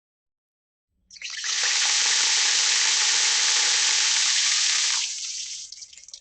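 Water tap turned on, water running steadily from the faucet into a sink for about four seconds, then shut off, leaving a short trickle and drips.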